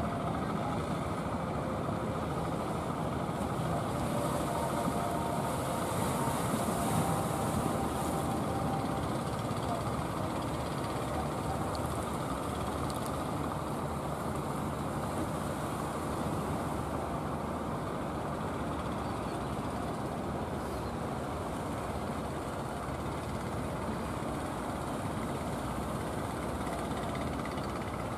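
Inboard engine of a wooden fishing boat running steadily as the boat comes in under power.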